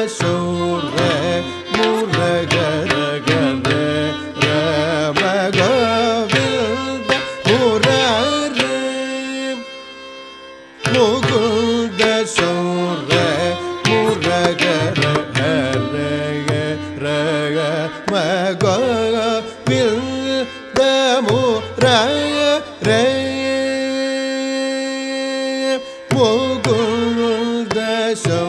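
Carnatic classical music: an ornamented melody with sliding, oscillating notes over frequent mridangam strokes. About ten seconds in it dips briefly, and near the end a long note is held while the drum stops.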